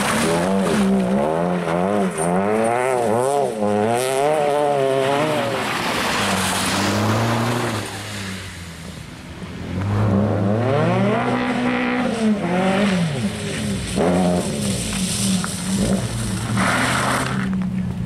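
Peugeot 206 RC rally car's four-cylinder engine revving hard, its pitch swinging up and down about twice a second for the first few seconds. It goes quieter briefly around eight seconds in, then climbs and falls again through the rest.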